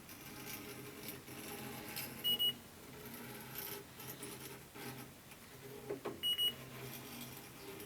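Electronic refrigerant leak detector giving a short, high beep twice, about four seconds apart, over a low steady hum. The slow, even beeping is its idle rhythm at high sensitivity, showing no refrigerant leak at the probe tip.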